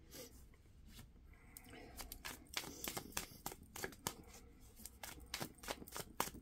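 Tarot deck being shuffled by hand: a soft run of quick, irregular card clicks, starting about two seconds in.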